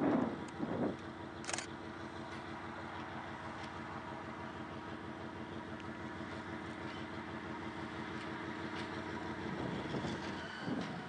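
Narrow-gauge diesel locomotive running steadily as it approaches across the fields, its engine drone swelling slightly toward the end. There is a sharp click about a second and a half in, and a few low bumps near the start and end.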